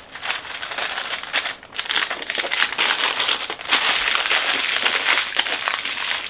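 Wax paper crinkling and rustling as hands fold and crease it around a small stack of cookies, with a brief lull about a second and a half in.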